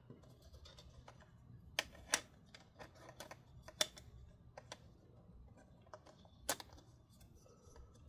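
Scattered light plastic clicks and taps from hands handling the opened laptop and refitting its loose internal speaker, the sharpest about two, four and six and a half seconds in.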